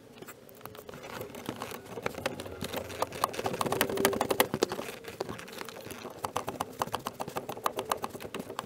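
Ratchet wrench clicking in quick runs as the pinch bolt holding the steering shaft to the steering rack is loosened, the clicks thickest about midway.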